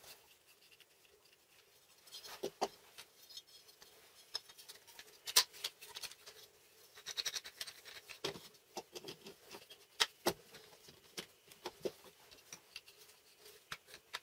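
Wooden clamp jaw blocks and a metal bar being handled and fitted together on a wooden tabletop: irregular clicks, knocks and light scrapes, starting about two seconds in.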